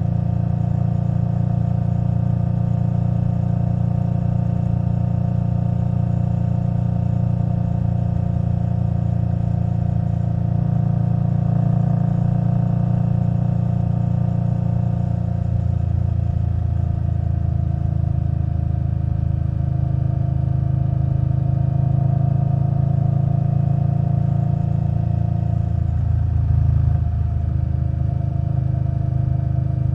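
2021 Indian Scout Bobber Twenty's V-twin running steadily under way through a Vance & Hines Twin Slash exhaust. The engine note shifts in pitch a little about halfway through and changes briefly near the end.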